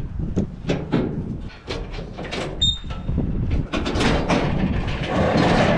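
A steel cattle crush rattling and clanking, with a string of sharp metal knocks as a cow shifts inside and the gates are worked.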